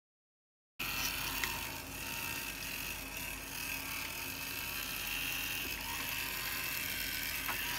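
Compressed air blowing through a dehumidifier's small cooling fan: a steady hiss with a high, even whir from the spinning fan, with a few faint clicks. It starts abruptly just under a second in.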